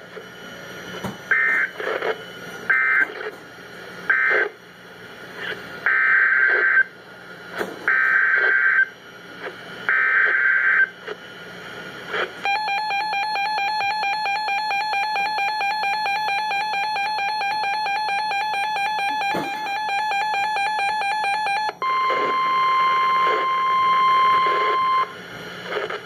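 EAS/NOAA Weather Radio alert tones from the speaker of a Reecom weather radio. First come three short screeching SAME data bursts, the end-of-message code that closes the Severe Thunderstorm Watch, then three longer bursts, the header for a new Special Marine Warning. Then the radio's own fast-pulsing electronic alarm beep sounds for about nine seconds, and a steady 1050 Hz warning alert tone follows for about three seconds.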